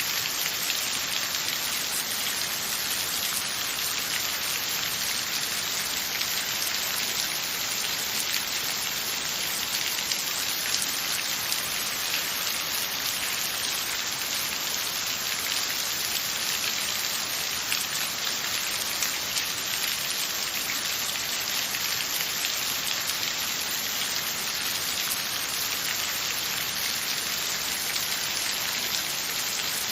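Steady rain falling on a surface, a dense even patter of many small drop ticks.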